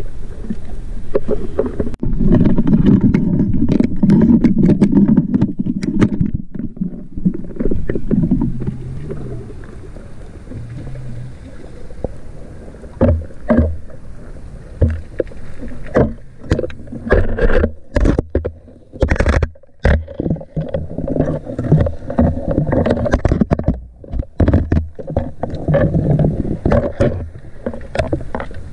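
Underwater sound picked up by a camera submerged with a freediving spearfisherman: a muffled low rumble of water moving past for the first several seconds, then irregular sharp clicks and knocks, thickest about two-thirds of the way through.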